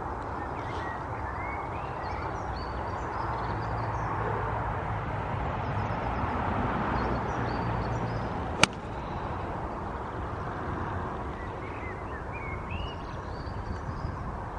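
A golf club strikes the ball once on a tee shot, a single sharp click about two-thirds of the way through. Small birds chirp now and then over a steady outdoor hum.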